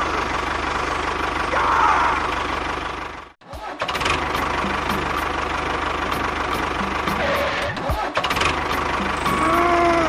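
Tractor engine running steadily. It cuts out abruptly for a moment about a third of the way in, then comes straight back, with light ticks over it in the second half.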